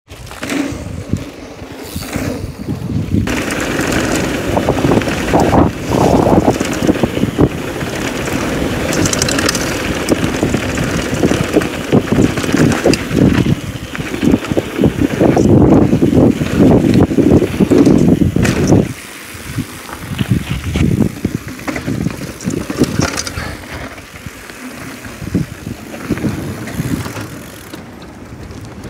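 Downhill mountain bike rolling fast over a rough gravel trail: a continuous crunch of tyres and rattle of the bike over bumps, with wind buffeting the microphone. It eases a little about two-thirds of the way through.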